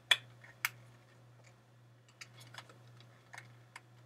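Hard plastic toy phaser being handled, its battery compartment cover worked: a few sharp clicks and taps, the two loudest within the first second and fainter ones later, over a low steady hum.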